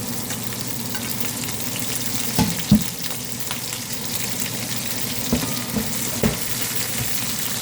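Chopped shallot, onion, garlic and pepper sizzling in hot oil while being stirred, with a handful of short knocks of the spoon against the pot, the loudest nearly three seconds in.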